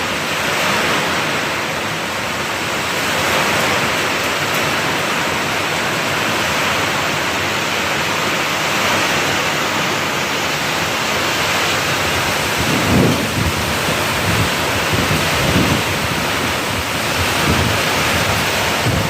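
Heavy rain pouring in a steady dense hiss, with wind gusting. In the last third come several short low buffeting bursts of wind.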